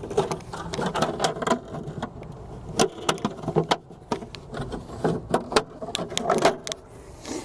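A glove-box kit side panel being worked into the slots of a boat's cooler compartment: irregular knocks and clicks with rubbing and scraping as the tabbed piece is pushed and seated.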